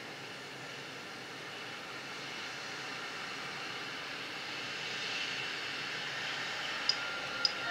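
A steady noise slowly grows louder, coming from the video's soundtrack through the tablet's speakers. Near the end there are two sharp ticks: the tablet's on-screen keyboard clicking as keys are tapped.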